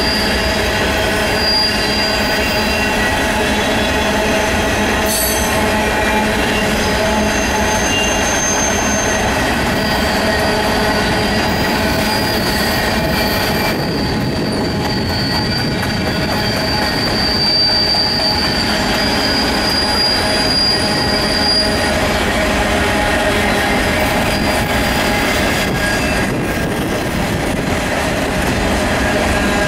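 Freight train of covered grain hopper cars rolling past: a steady loud rumble of steel wheels on rail. Thin high wheel squeals come and go over it, with a long one through the middle.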